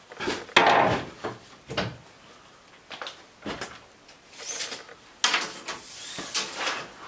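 Walnut boards knocking and scraping against each other and the miter saw table as they are handled, in irregular clunks and slides. The loudest clunk comes about half a second in. Near the end a steel tape measure is drawn out along the board.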